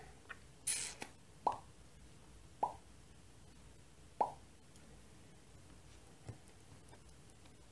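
Cross-stitch thread pulled through fabric held in a hoop, a short hiss about a second in, then three soft, short pops about a second apart.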